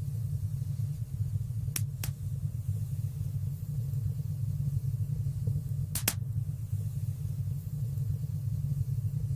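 Fire burning in a stone fireplace: a steady low rumble of the flames with sharp crackling pops, two close together about two seconds in and two more about six seconds in.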